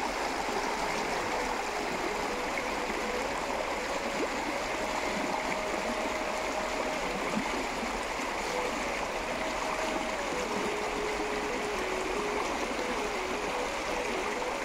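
Shallow river water rushing steadily over a gravel and stone bed.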